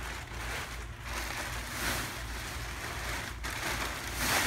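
Thin clear plastic wrapping crinkling and rustling as it is pulled off a mattress and bunched up by hand, in uneven swells, with the loudest rustle near the end.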